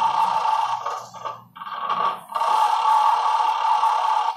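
Electronic sound effects from a Mario roulette arcade gambling machine's speaker: a steady electronic tone that breaks off about a second in and comes back a second or so later.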